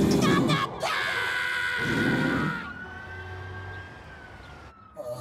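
Cartoon snoring: two loud rasping snores about two seconds apart, with a long high whistling tone that glides up and then slowly sinks.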